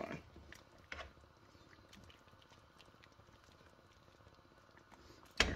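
Faint soft squelching and light scattered clicks of a slotted spatula being stirred through a thick creamy vegetable stew in a frying pan, with a louder clack near the end.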